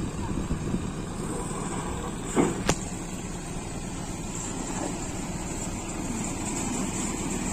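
Engine idling steadily, with two sharp knocks about a quarter second apart a little over two seconds in as a loading ladder is pulled off the truck bed.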